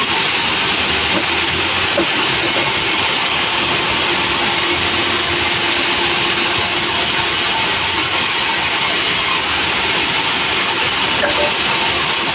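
Sawmill machinery running with a loud, steady noise and no let-up.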